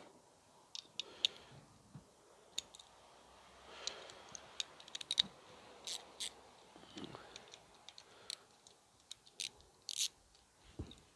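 Irregular sharp metallic clicks and light scraping of a socket being worked on the terminal nuts of an air compressor's electric motor to free its wires, with a quick cluster of clicks about five seconds in.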